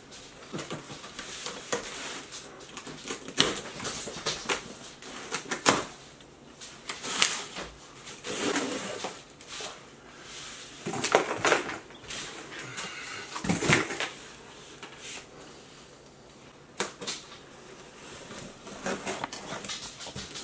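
Cardboard box being unpacked by hand: plastic strapping pulled off and packing tape cut and peeled, heard as irregular scrapes, rustles and light knocks, louder around the middle.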